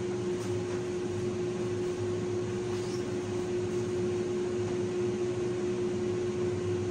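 Steady machine hum, like a fan or air-conditioning unit running in the room, with one constant tone.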